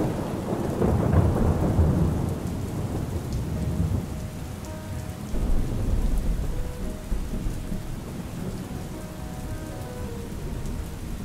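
Steady rain falling with rolling thunder: a long low rumble in the first couple of seconds and another about five seconds in.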